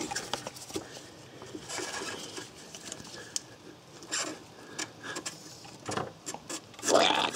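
Light clicks and scrapes of gloved hands working the locking tab of a plastic O2 sensor wiring connector, with a brief low vocal sound near the end.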